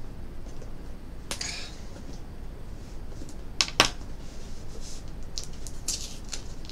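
A cardboard subscription box being handled and prised open by hand: scattered scrapes and rustles, with two sharp clicks close together a little past halfway, the loudest sounds.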